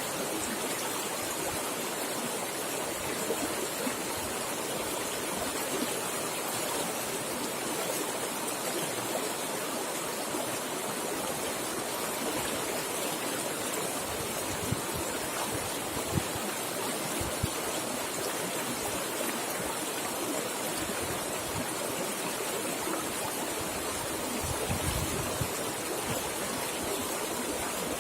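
River water rushing steadily over rocks, an even, continuous sound of fast-flowing current, with a few soft low thuds in the middle and near the end.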